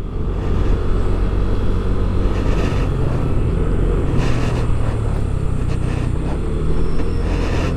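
Steady riding noise from a Yamaha Aerox scooter under way: wind rushing over the microphone with the engine's low drone underneath.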